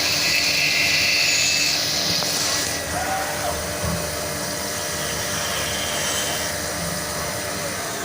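CNC milling machine cutting aluminium: a steady high-pitched spindle and cutting noise, which eases somewhat about three seconds in.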